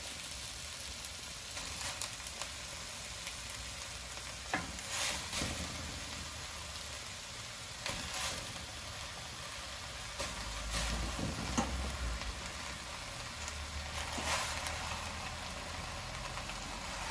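Steady sizzling from chopped onions in a heated clay handi, with a few short knocks scattered through as raw chicken pieces are set down on top.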